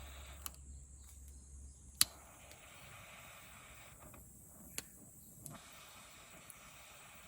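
A few sharp clicks, the loudest about two seconds in, over a faint steady high-pitched insect drone.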